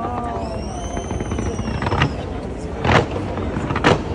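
Fireworks display going off continuously with a dense rumble of bursts. There are two sharp bangs about three and four seconds in, and a high whistle rises and falls in the first second and a half.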